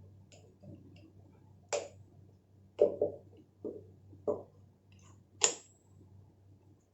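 Screwdriver working the screws out of a home theater amplifier's metal heat sink: about six sharp clicks and knocks at uneven intervals, the loudest a little over halfway through, over a faint low hum.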